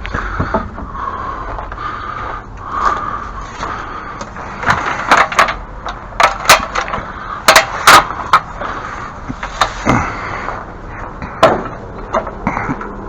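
Irregular clatter of hard objects being handled and knocked about, about a dozen sharp knocks, the loudest clustered around the middle, over a steady rattling background.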